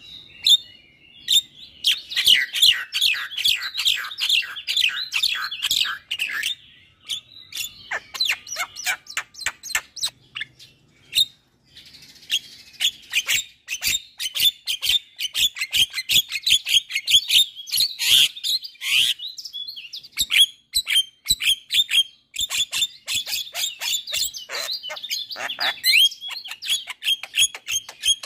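Javan myna (jalak kebo) singing a long, fast chattering song of many short whistled and harsh notes, broken by short pauses about 6 and 11 seconds in.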